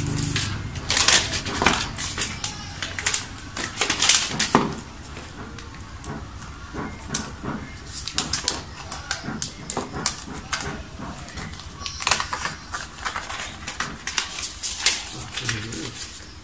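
Rustling and crinkling of an iPad's soft protective wrap as it is handled and peeled off the tablet, a run of short sharp crackles that comes in two busier stretches, near the start and again past the middle.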